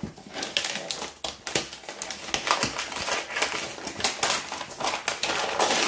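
Brown kraft paper wrapping being torn open and crinkled by hand: a continuous run of quick rustles and rips, growing a little louder towards the end.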